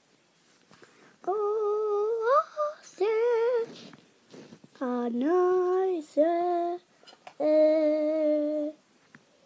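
A boy humming a tune in a small room: about five held notes, each up to a second or so long, with short pauses between them, the pitch stepping up and down.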